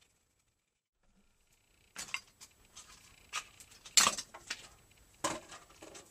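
Near silence, then from about two seconds in a knife shaving and scraping along a peeled wooden atlatl dart shaft in short, irregular strokes. The sharpest stroke comes about four seconds in and another a little after five.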